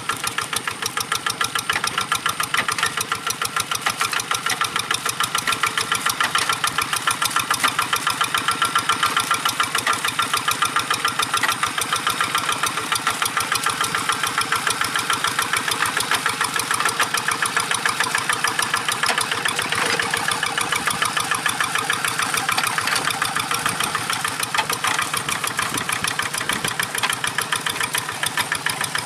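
Single-cylinder diesel engine of a two-wheel walk-behind tractor running under load as it pulls cage wheels and a plow through a flooded paddy, with a rapid, even chugging.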